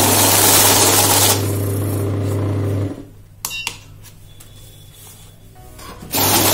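Kores Easy Count 440 currency counting machine whirring as it feeds and counts a stack of banknotes, the notes rushing through fast, then stopping about three seconds in. A short click and beep come as a key is pressed, and near the end the machine starts up again on its own as a new stack is placed in automatic mode.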